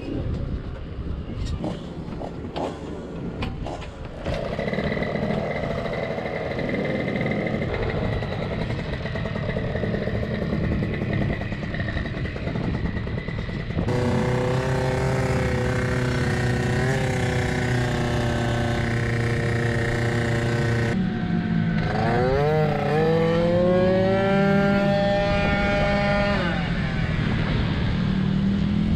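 Tuned Piaggio Zip SP two-stroke scooter engine run at full throttle around a kart track: long high-revving stretches, with the revs dropping sharply into a corner about three-quarters through and climbing again as it accelerates out.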